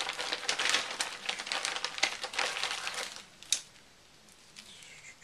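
Clear plastic packaging crinkling and rustling as paintbrushes in plastic sleeves are handled and unwrapped. It stops about three seconds in, and a single sharp click follows.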